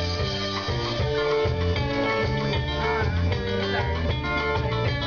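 Live band playing an instrumental passage: guitar and saxophone over a pulsing line of low notes, with no singing.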